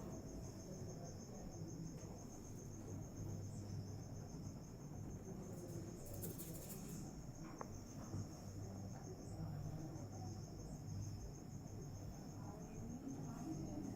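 A cricket trilling without a break, a high, even pulsing chirr, over a low steady hum. A brief soft hiss comes about six seconds in.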